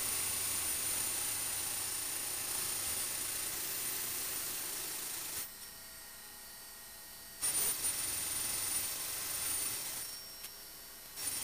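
Electric potter's wheel running: a steady whirring hiss with a thin high whine. The sound drops away abruptly twice, for about two seconds just past the middle and for about a second near the end.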